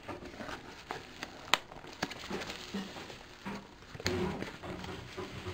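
Cardboard box and its bubble-wrapped contents being handled: scattered rustles and light clicks, one sharp click about one and a half seconds in, and louder rubbing and shuffling from about four seconds in as the box is tipped up.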